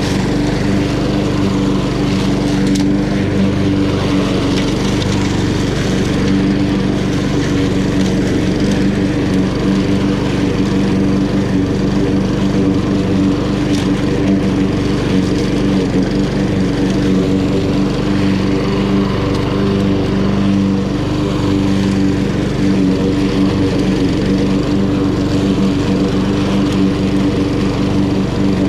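Honda GCV170 single-cylinder four-stroke engine of a walk-behind lawn mower, running steadily at a constant pitch.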